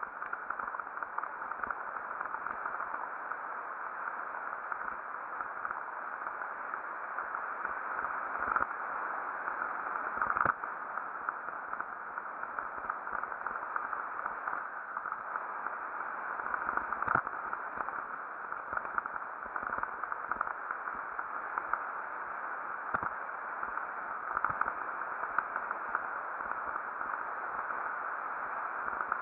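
Steady rushing noise of a mountain bike descent heard through a helmet camera: tyres over a leafy dirt trail and air rush on the camera. A few sharp knocks from trail bumps, about eight and ten seconds in and again after seventeen seconds.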